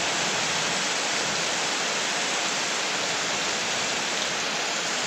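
Heavy rain pouring onto a street covered in shallow floodwater: a dense, steady hiss of drops striking the standing water.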